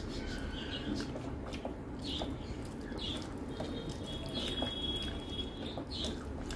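Fingers mixing and squeezing soft rice and lentil dal on a steel plate, with small wet squishing sounds over a steady low background noise.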